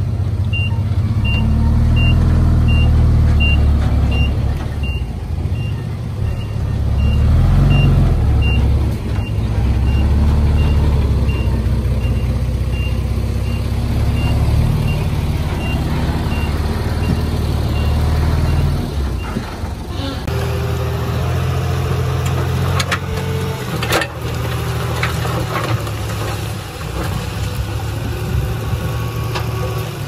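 A heavy diesel construction machine's engine runs loudly while its backup alarm beeps steadily, about two beeps a second. The alarm stops about two-thirds of the way through. After that the engine keeps running, with a few sharp clanks.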